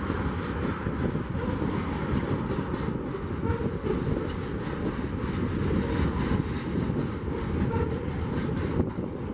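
Container wagons of a freight train rolling past at speed, a steady rumble of steel wheels on the rails with irregular clicking and clattering.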